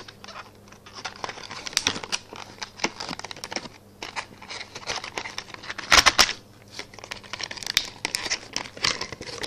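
Clear plastic blister packaging crinkling while a small plastic toy car is handled, with irregular clicks and crackles and a louder clatter about six seconds in.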